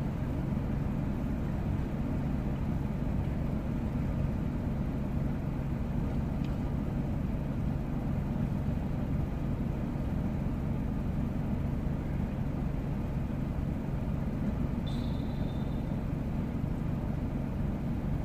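A steady, low engine-like hum with an even tone that does not change. About three quarters of the way through there is one brief high-pitched ring.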